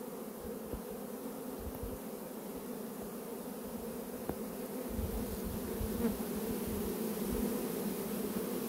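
Steady, dense buzzing hum of a disturbed honeybee swarm on the ground, a swarm the beekeeper believes is queenless; it grows slightly louder in the second half.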